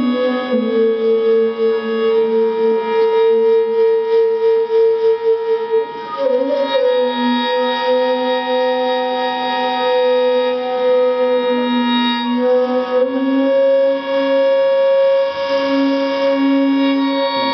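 Slow instrumental duet: two melody instruments, one of them a flute, hold long sustained notes one above the other and move to new notes together every few seconds.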